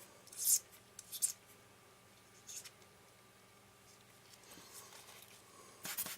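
Dust being cleared from camera lens parts: a few short hissy strokes, then a quiet stretch, then a quick cluster of hissy strokes and small clicks from handling the lens near the end.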